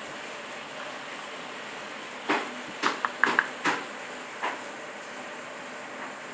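Kitchen knife chopping minced garlic on a wooden chopping board: about seven sharp, irregular knocks bunched in the middle, a few with a brief ringing tone, over a steady background hiss.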